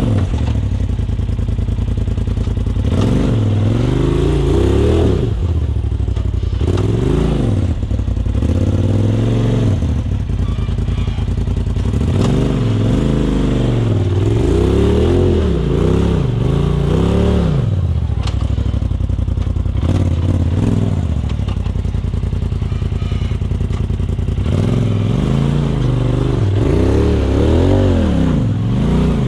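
Polaris RZR side-by-side engine revving in repeated short bursts between steady running as the machine crawls up a steep rock ledge, with a quieter steady stretch in the middle and a fresh run of revs near the end as a rear tyre climbs a boulder.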